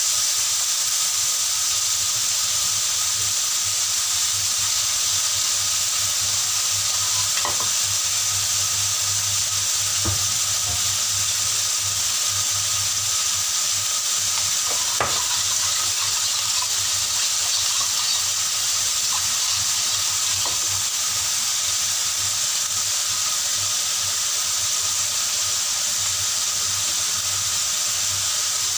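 Beef and cucumber frying in a stainless steel wok: a steady sizzle, with a few faint clicks along the way.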